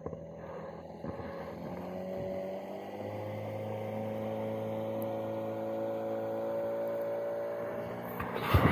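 Small boat's outboard motor running steadily, slowly growing louder and rising a little in pitch as the boat comes closer. Near the end, a short burst of loud handling noise as a hand brushes the camera.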